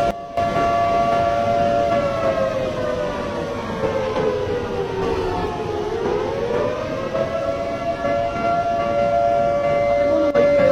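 Outdoor warning siren sounding a steady two-tone note that sinks in pitch for a few seconds in the middle, then rises back to its steady pitch. It drops out for a moment right at the start.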